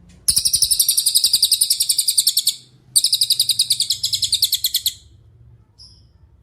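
Cililin songbird singing two rapid, high-pitched trills, each about two seconds long with a short break between, then one brief faint note near the end.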